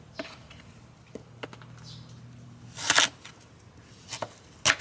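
Handling noise at a barbecue table: scattered light clicks and knocks, with a short loud rustling clatter about three seconds in and another sharp knock near the end, over a faint low hum.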